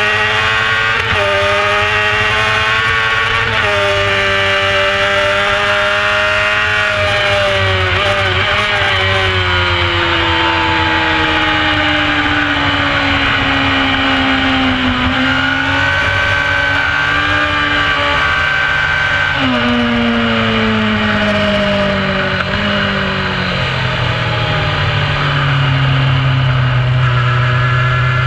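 Onboard sound of a carburetted 600cc racing motorcycle's engine at race pace, its note stepping with gear changes and sinking in long glides as the bike slows for corners, over steady wind rush.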